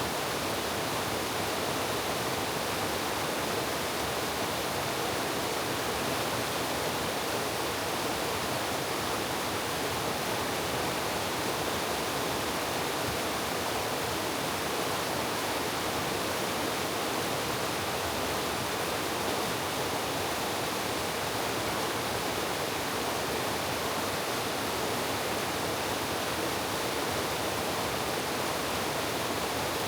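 Mountain valley stream rushing steadily, an even noise of running water with no breaks.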